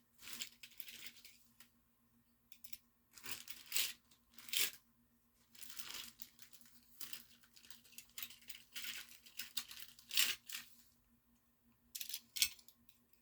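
Packaging of a diecast toy car being torn open and crinkled by hand: a run of short, irregular tearing and rustling bursts with pauses between them.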